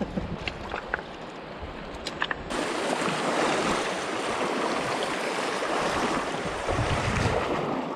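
Running river water, a steady rushing noise that comes in suddenly about two and a half seconds in and cuts off abruptly at the end. A few light clicks are heard before it.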